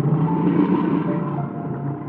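Brown bears growling as they play-fight in water, a loud, rough, low sound, with background music underneath.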